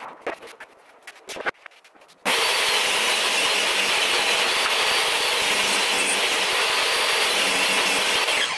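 Portable table saw starting about two seconds in and ripping a long strip of plywood, a loud steady cutting noise that stops abruptly near the end. Before it, a few light knocks of boards being handled.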